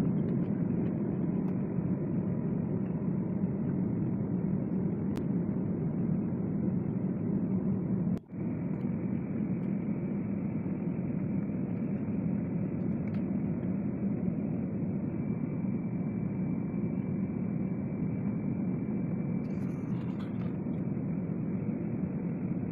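Steady rumble of airliner cabin noise, the engines and rushing air heard from inside the passenger cabin during the descent to landing. The sound drops out for a moment about eight seconds in, and a faint steady whine runs through the second half.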